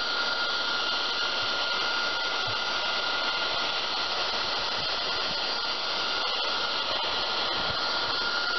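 Electric heat gun (paint-stripper gun) blowing steadily, a constant rush of air with a thin steady high whine, as it shrinks heat-shrink tubing onto a freshly crimped battery cable lug.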